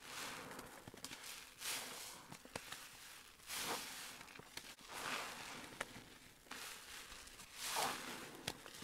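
A soap-soaked sponge squeezed by hand through thick dish-soap foam: wet squelches about every one and a half to two seconds, five in all, with a few small sharp clicks between them.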